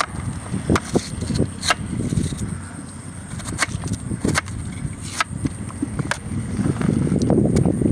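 Kitchen knife chopping raw purple yam on a metal tray: irregular sharp clicks and knocks of the blade, over low rustling handling noise that grows louder near the end.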